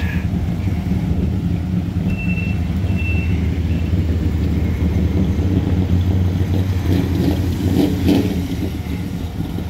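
Construction machinery engine running steadily, with two short reversing-alarm beeps about two seconds in and some rougher, louder noise near the end.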